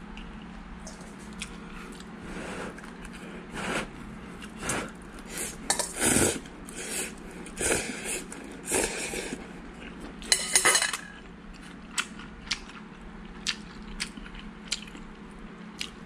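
Ramen noodles being slurped and eaten, about eight noisy slurps roughly a second apart. Near the end come several light clicks of metal chopsticks against a stainless steel pot and bowl.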